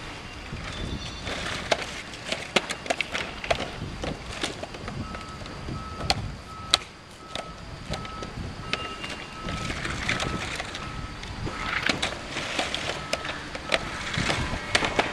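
EventDeck Ultra turf-protection floor panels knocking and clattering as they are carried, set down and locked together on asphalt, with scuffing footsteps. A steady electronic beeping, about one and a half beeps a second, starts about five seconds in.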